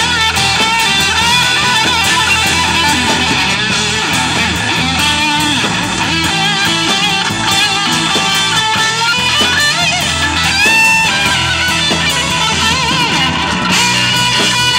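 Live blues band playing an instrumental section: electric guitar with bent, wavering notes over bass, drums and keyboard.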